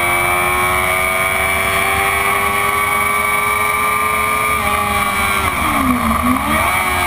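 Stock 2004 Honda CBR600RR's inline-four engine running hard along a straight, heard from on board with wind rushing past. Its pitch climbs slowly, then dips and comes back up once near the end.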